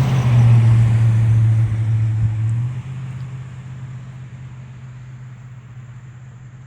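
Motor vehicle engine running with a steady low hum, loud at first and then fading away after about three seconds.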